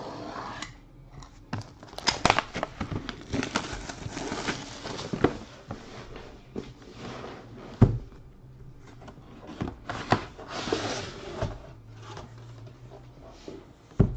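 Plastic shrink-wrap being torn and crinkled off a trading card box, with irregular handling clicks and a couple of sharper knocks against the case.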